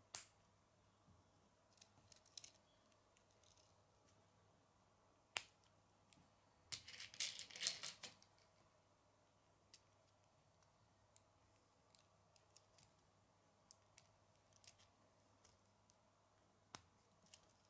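Plastic K'nex rods and connectors being handled and snapped together: a sharp click right at the start, another about five seconds in, a second or so of clattering plastic about seven seconds in, and faint clicks and taps between, with one more sharp click near the end.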